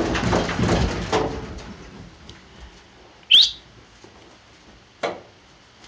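Cattle hooves clattering and knocking on a stock trailer's floor and sides, dying away over the first two seconds as the animals settle. Then one sharp rising whistle about three seconds in, and one more short sound about five seconds in.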